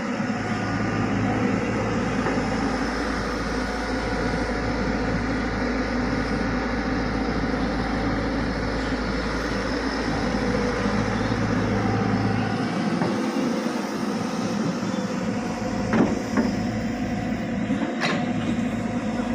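Tata Hitachi excavator running steadily with continuous machine noise. Its low hum drops away about two-thirds of the way through, and two sharp knocks come near the end.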